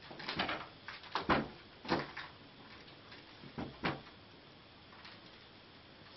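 A cat's paws knocking and scraping against a wooden cabinet door as it reaches up at a hole in it: a run of sharp knocks and scrapes in the first four seconds, the loudest about a second in, then quieter.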